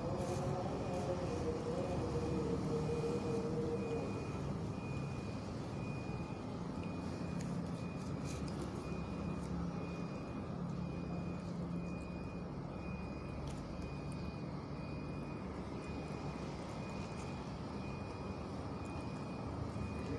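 A steady low engine-like rumble, with a short high beep repeating at an even pace, about twice a second.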